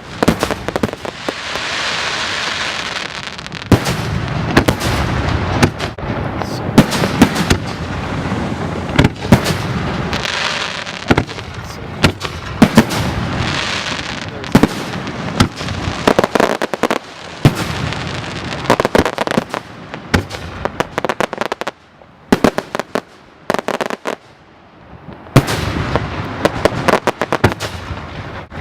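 Aerial fireworks bursting in rapid succession: sharp bangs with crackling and hissing between them, easing off in a short lull near the end before the bursts pick up again.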